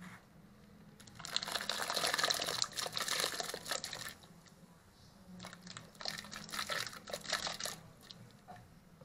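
Chopped octopus and conch pieces tipped from a plastic bowl into a large aluminium pot of steaming water, splashing in. It comes in two pours: a longer one starting about a second in, and a shorter one a little past the middle.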